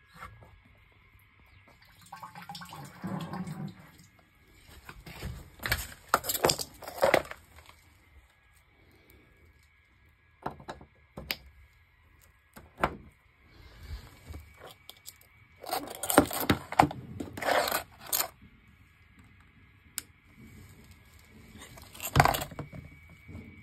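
Handling noises in irregular loud bursts with quiet gaps: scrapes, clatters and clicks as a soaked netbook is lifted out of the water and set down.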